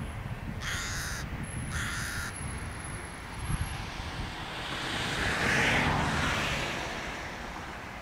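Rook calling: two harsh caws about a second apart near the start. Later a rushing noise swells and fades, the loudest sound here, with low wind rumble on the microphone throughout.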